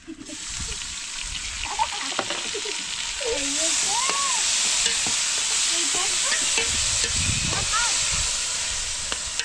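A steady sizzling hiss that starts abruptly and grows louder a few seconds in, with a few faint pitched calls over it.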